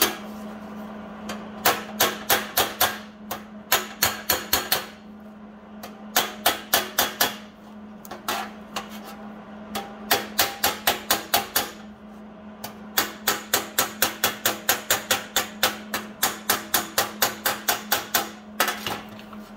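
Body hammer tapping thin sheet steel against a flat dolly: runs of sharp metallic taps, about three or four a second, with short pauses between. The hammering knocks up the low side of a tack-welded patch panel seam so both panels sit flush.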